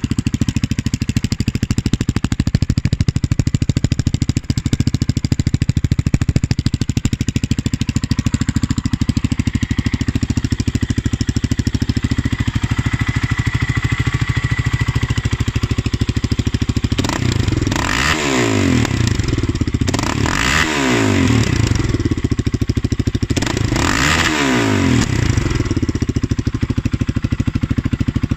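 450 cc quad ATV engine idling loudly through an aftermarket Akrapovič-replica exhaust with the dB killer fitted, then revved three times in a row, each rev rising and falling in pitch, before settling back to idle.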